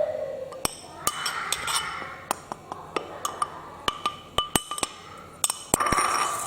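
Irregular clinks of a utensil against a metal pot or bowl, each with a short ringing tone, as a mixture is stirred or scooped.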